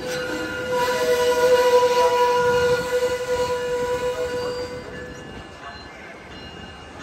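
Amtrak Capitol Corridor passenger train rolling to a stop alongside the platform, its brakes giving a steady high squeal for about five seconds, loudest in the first half, before it fades to a low rumble.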